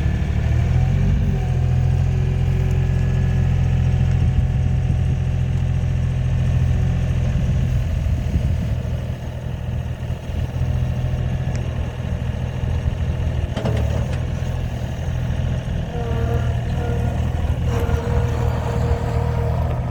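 2017 Gehl 3640 skid steer loader's diesel engine running steadily, with a higher steady whine joining in near the end.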